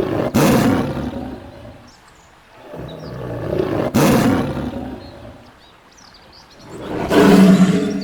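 Tiger roaring three times: three long roars a few seconds apart, each swelling up and dying away.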